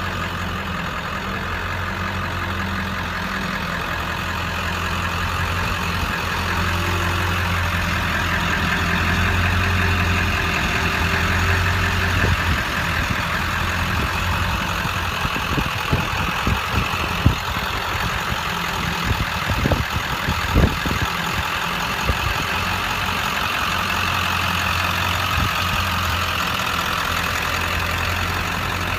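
Ford 7.3 L Power Stroke turbo-diesel V8 idling steadily with a low hum. Around the middle a few sharp knocks cut in, the loudest about three-fifths of the way through.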